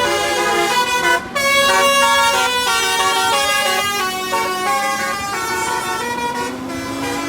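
Telolet basuri multi-tone bus horn playing a fast melody, one horn note after another, with a brief break a little over a second in and a lower tone gliding upward near the end.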